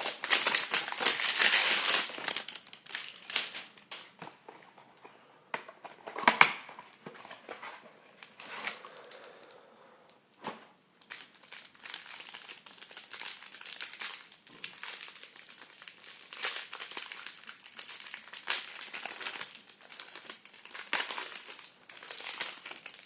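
Plastic and cardboard packaging crinkling and rustling, with scattered light clicks and taps, as trading card hanger boxes and their wrappers are handled and opened. The rustling is densest in the first couple of seconds and flares again about six seconds in.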